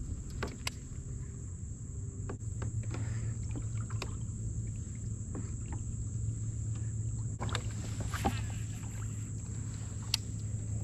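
Fishing from a kayak: scattered light clicks and knocks of the hull and tackle over a steady low hum, with a busier run of them about three-quarters of the way through.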